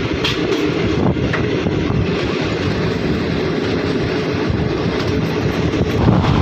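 Express train's sleeper coach running at speed, heard from aboard: a steady rumble of steel wheels on the rails, with a few sharp clicks at rail joints in the first second or so.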